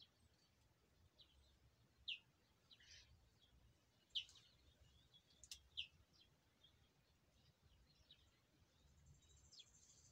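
Near-silent garden ambience with faint, short bird chirps scattered through, several close together between two and six seconds in, and a faint high buzz near the end.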